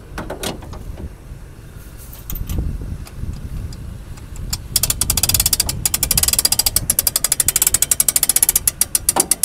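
Boat trailer hand winch being cranked, its ratchet pawl clicking rapidly and evenly, about ten clicks a second, starting about halfway through and stopping just before the end. A low rumble runs underneath.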